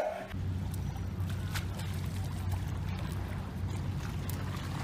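Water lapping and splashing against a concrete seawall, over a steady low rumble.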